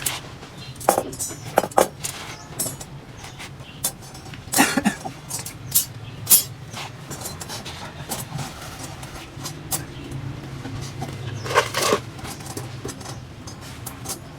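Steel rebar clinking and knocking as it is handled, in irregular metallic strikes over a steady low hum, with louder clusters about a second in, near the middle and near the end.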